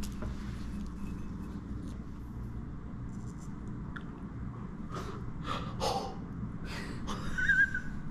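Steady low hum of a quiet room, with faint rustling as gloved hands press potting soil, and a few soft breaths or sniffs.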